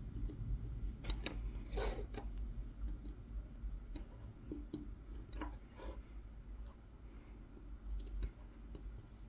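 Tip of a Mora 106 carving knife scratching short kolrosing cuts into a wooden spoon, a series of separate scrapes spaced a second or so apart as a small circle is incised. The longest, loudest stroke comes about two seconds in.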